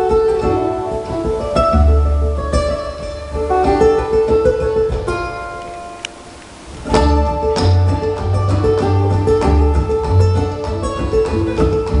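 Ukulele and cello playing a folk tune live: quick plucked ukulele notes over long, low cello notes. About halfway through, the music thins and fades almost away, then both instruments come back in strongly about a second later.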